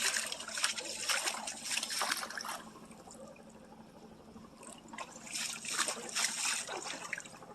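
Water trickling and splashing in a small stream, easing off for a couple of seconds in the middle before picking up again.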